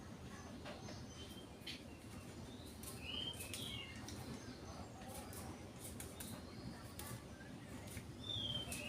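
Oriental magpie-robin giving two short high chirps, one about three seconds in and one near the end, over scattered light ticks.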